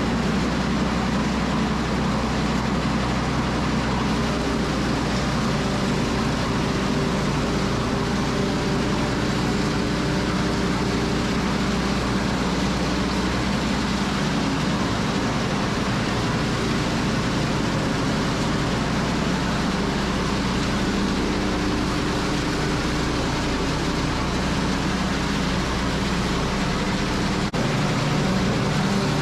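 Small bedding chopper running steadily, shredding slices broken off big square straw bales for cow bedding.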